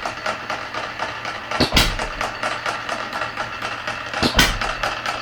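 Red Wing 1/3-scale model hit-and-miss engine running slowly: it fires twice, about two and a half seconds apart, and coasts between the firings with a light rapid clicking. The spaced firings are the hit-and-miss governing, skipping power strokes until the speed drops.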